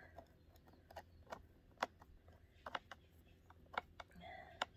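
Faint, irregular clicks and ticks of a screwdriver working the screw that holds one side of a gullet plate in a soft tree saddle.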